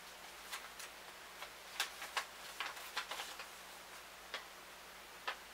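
A small package being opened by hand: light, irregularly spaced clicks and crinkles of its packaging.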